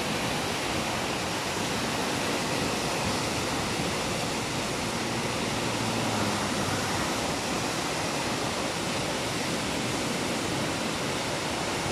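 Brown floodwater of a swollen river rushing and churning in standing waves, a steady, even rush of water noise.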